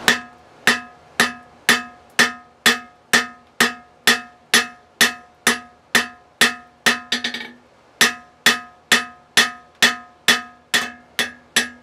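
Hand hammer striking red-hot rebar on a steel anvil, drawing out the end of a spoon bit: steady blows about two a second, each with a ringing metallic tone, with a short break a little past halfway.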